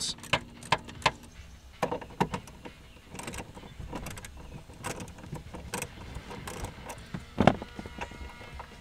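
Small ratchet wrench with a 7 mm socket clicking as it loosens a bolt on a plastic dash access panel, with irregular light clicks and rattles of the tool and bolt and one louder knock near the end.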